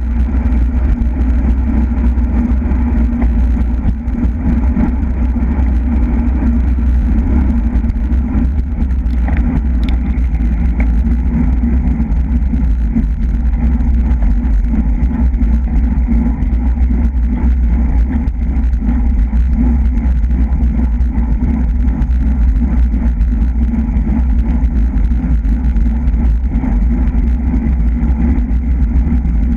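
Steady wind rush buffeting a bicycle-mounted camera's microphone at racing speed, a loud, unbroken low rumble.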